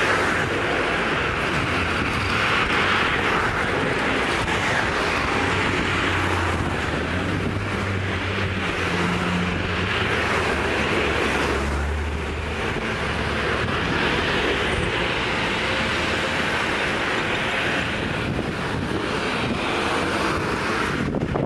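Road traffic on a town high street: cars driving past one after another, their tyre and engine noise swelling and fading, with a low engine hum from a passing vehicle near the middle.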